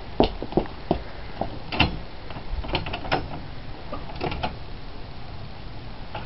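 Hurried footsteps, then a series of metallic clicks and rattles from a wooden shed door's latch and padlock being worked by hand. The clicks fade out after about four and a half seconds.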